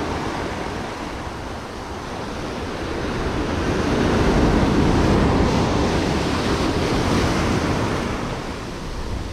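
Ocean surf breaking and washing over shoreline rocks, a steady rush that swells to its loudest about four seconds in and eases near the end.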